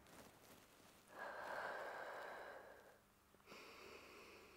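A man's faint, slow breath out, a soft hiss lasting about two seconds that starts about a second in, taken while he holds a seated forward-bend hamstring stretch.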